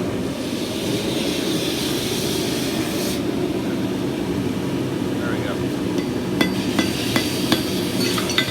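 A hammer strikes hot steel on an anvil about five times in the last two and a half seconds, each blow ringing; this is the point of a fencing-nail deadbolt being knocked down to take off its sharp edges. Under it runs a steady low rumble.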